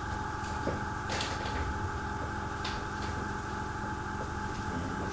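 Airbrush hissing in short bursts, about a second in and again near three seconds, spraying heavily thinned paint, over a steady low hum.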